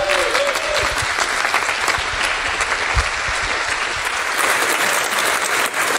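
Audience applauding steadily, a dense even patter of many people clapping.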